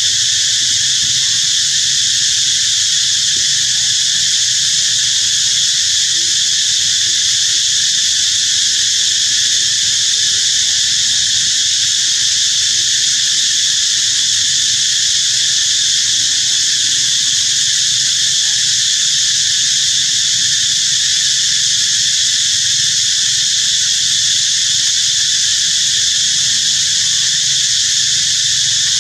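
A loud, steady, high-pitched chorus of insects droning without a break.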